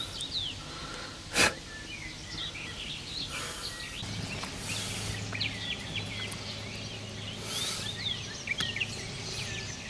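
Songbirds chirping and warbling throughout. A sharp click comes about one and a half seconds in, and a low steady hum starts about four seconds in.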